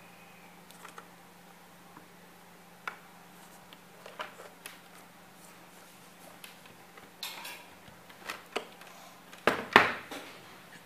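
Scattered clicks and knocks of hands handling a plastic HMI touch panel and its power leads, with a louder clatter near the end, over a faint steady hum.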